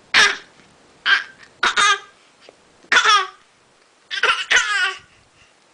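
A baby making a fake coughing sound over and over: short cough-like vocal bursts about once a second, some in quick pairs, the last a longer double burst.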